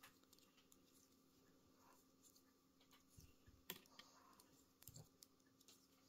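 Faint, irregular clicks of metal circular knitting needle tips knocking together as stitches are knitted, over near silence.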